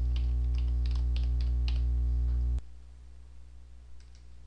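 Computer keyboard keystrokes, about eight quick taps, over a steady electrical hum that cuts off suddenly about two and a half seconds in. A couple of faint mouse clicks follow near the end.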